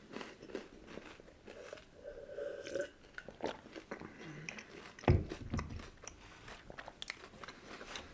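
Chewing and crunching of shortbread sandwich cookies with chocolate filling, in small scattered crunches and clicks. A single heavy thump about five seconds in.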